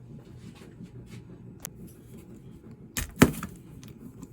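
Hand tools being handled while working on a small-engine carburetor: a few light clicks, a sharp click, then a louder metallic knock about three seconds in, as a wrench is picked up and put to a fitting.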